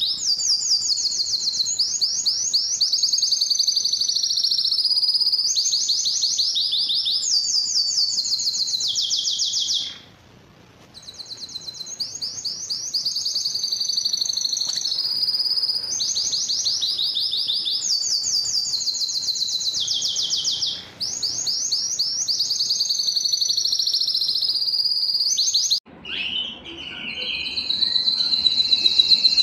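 Male domestic canary singing: a long run of rapid trills and rolls, each phrase a fast repeat of one note before switching to the next. The song breaks off briefly about a third of the way in, and near the end it gives way to a different, lower-pitched song.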